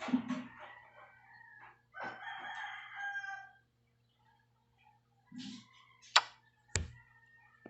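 A rooster crows once, a drawn-out call of about a second and a half. Near the end come two sharp knocks about half a second apart.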